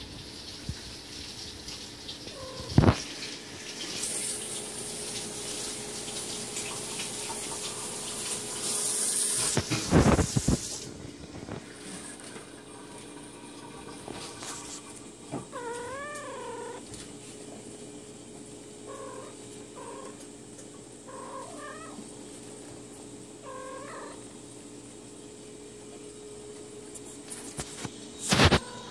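Sphynx cats meowing: one wavering meow about halfway through, then four short mews a second or two apart. Earlier a steady hiss runs for several seconds, and sharp knocks, the loudest sounds, come near the start, about a third of the way in and near the end.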